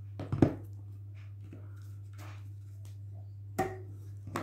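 Hands working at a slingshot band-tying jig on a table: a loud sharp knock about half a second in, a few faint ticks, and another knock near the end, over a steady low hum.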